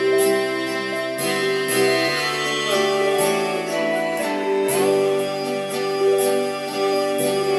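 Electronic keyboard playing a slow melody of held notes in an esraj (bowed Indian string) voice, with one note sliding up a little past halfway, over the keyboard's own backing of bass notes and a steady percussion beat.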